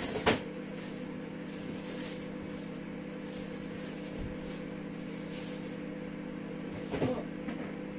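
Rummaging in an open refrigerator: a sharp knock just after the start, then faint rustles and clicks of things being moved on the shelves, over a steady low electrical hum.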